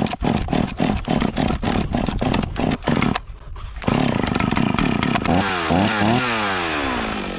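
Two-stroke chainsaw just started, sputtering in rapid uneven pulses for about three seconds. After a brief dip it runs full, revs up and down twice, and then eases off near the end.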